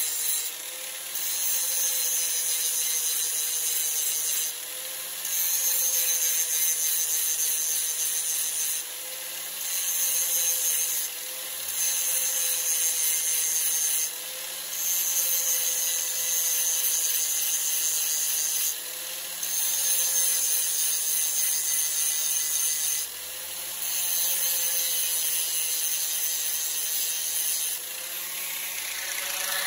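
Corded angle grinder sharpening the steel teeth of a hedge trimmer blade: the motor runs steadily while the disc grinds in passes of a few seconds each, with short breaks as it is lifted from tooth to tooth. Near the end the grinding stops and the grinder spins free.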